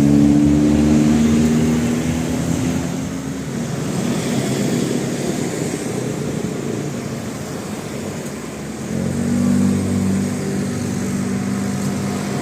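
A bus's musical telolet (basuri) horn holding a few low notes, fading out over the first couple of seconds, over the noise of bus engines and traffic; the horn sounds again from about nine seconds in.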